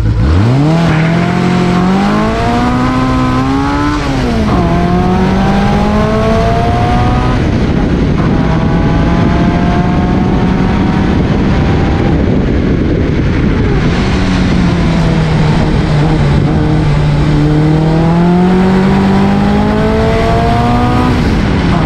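Reliant 750cc OHV four-cylinder engine of a small historic sports racing car at full throttle, heard from the cockpit. It pulls away with pitch climbing and changes up about four seconds in and again around seven seconds. It then eases off and slows for a while before building revs again, with another shift near the end.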